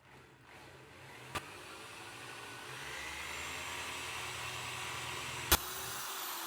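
Coronet No. 1 woodturning lathe motor starting up and running up to speed with a large drill bit fitted for boring a mallet head. About five and a half seconds in there is a sharp click, after which the hum stops and the machine winds down with falling pitch.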